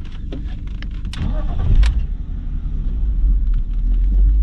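BMW E46 323's inline-six engine starting: a few clicks, then the engine catches about a second and a half in and settles into a steady, even idle. With the faulty ignition coil on cylinder 2 replaced, it runs without the misfire vibration, on all six cylinders.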